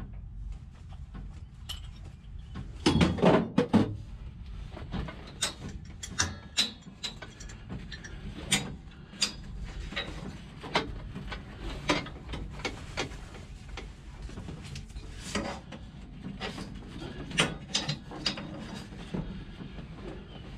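Scattered clicks, knocks and rattles from the driver moving about and handling gear in a drag car's cockpit, with a cluster of louder knocks about three seconds in.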